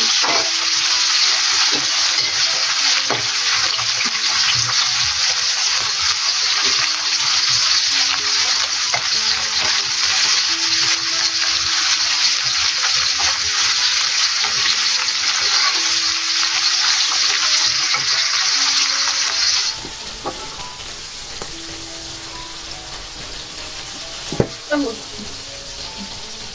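Oil sizzling as shallots, red chilies, kencur and shrimp paste fry in an aluminium wok, with a metal spatula stirring through them. The sizzle is loud and steady, then drops suddenly to a quieter frying about twenty seconds in, with a couple of spatula knocks near the end.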